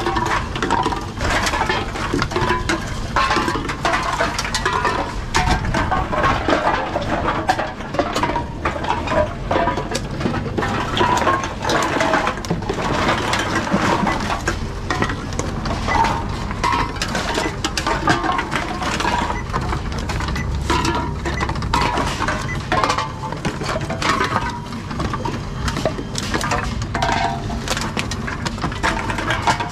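Aluminium drink cans and plastic bottles clinking and rattling against each other and against a wire trolley as they are picked up and fed one after another into a reverse vending machine. The knocks and clinks come densely and irregularly throughout.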